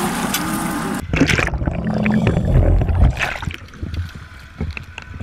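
Action camera on a landing-net handle plunging into lake water. About a second in, a splash cuts off the open-air wind and motor noise, and muffled underwater rushing and gurgling follow, with scattered knocks, loudest over the next two seconds and then fading.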